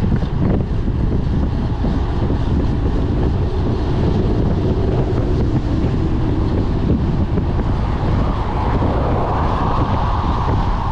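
Wind buffeting the microphone as a cyclist rides fast on a road bike: a loud, steady, low rumbling rush. A higher hiss comes in about eight seconds in.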